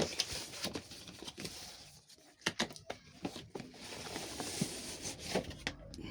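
Graphics card box being opened and its packaging handled: cardboard and plastic rustling, with scattered light knocks and clicks.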